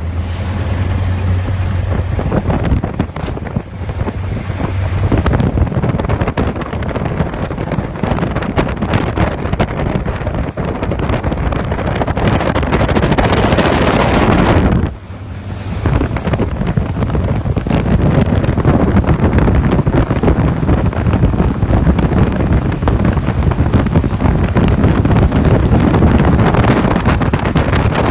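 Propeller aircraft engine running loud and steady in flight, mixed with heavy wind rush on the microphone. The sound drops out briefly about fifteen seconds in.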